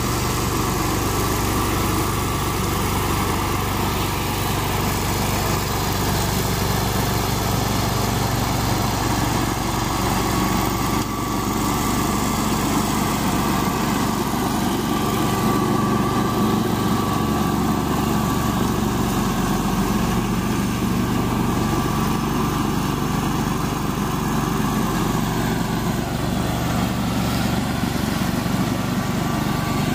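Walk-behind brush mower's small gas engine running steadily as it cuts through tall, overgrown grass.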